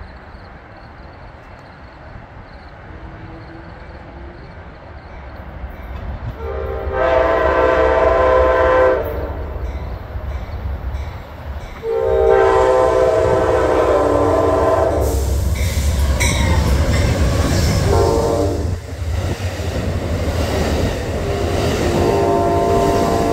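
Train horn sounding the long, long, short, long pattern of the grade-crossing warning as a diesel-hauled train approaches, with the heavy low rumble of the locomotive and wheels on rail building from about halfway.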